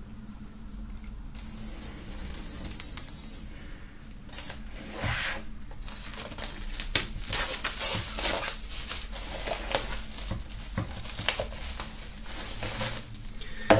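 Plastic shrink-wrap being slit with a folding knife and pulled off a hardcover photo book: crinkling and tearing of the foil with scattered small clicks and rustles.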